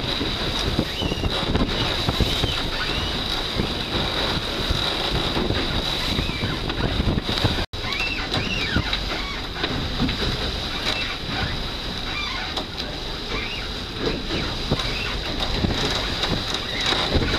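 Wind buffeting the microphone and water rushing along the hull of an 11 metre one design racing yacht sailing hard through choppy water, a steady loud rush. The sound cuts out for an instant about eight seconds in.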